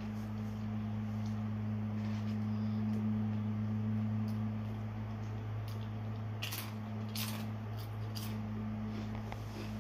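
A steady low electrical hum, with a handful of short sharp clicks or crunches about two-thirds of the way through.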